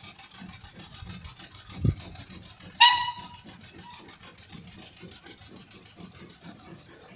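Narrow-gauge steam locomotive working slowly, its exhaust beating evenly at about four beats a second. A low thump comes just before two seconds in, and a short, high whistle toot about three seconds in.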